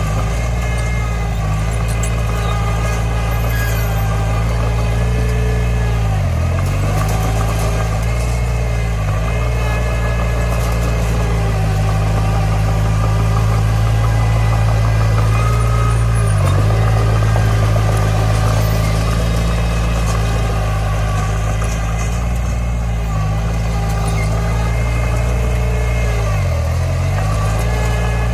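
Komatsu D20 bulldozer's diesel engine running steadily, its low drone dipping briefly in pitch several times.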